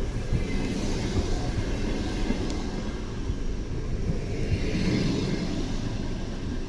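Passenger train rolling past at the station: a steady low rumble of wheels on rail. A higher hiss swells up twice.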